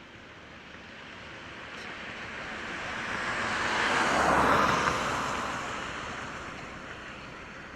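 A road vehicle passing close by: tyre and engine noise swells to a peak about halfway through, with a brief low rumble, then fades away.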